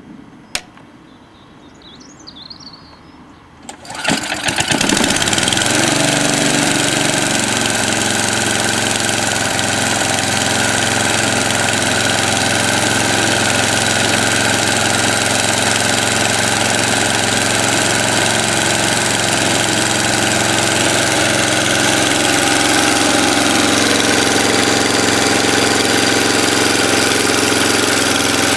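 Suffolk Punch 14S cylinder mower's petrol engine starting about four seconds in, after a single sharp click, and then running steadily.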